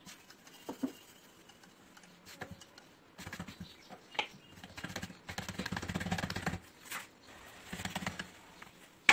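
Wooden rolling pin rolling out rice-flour bhakri dough on a floured wooden board, with light knocks and a rubbing sound that thickens in the middle, then hands patting the dough flat.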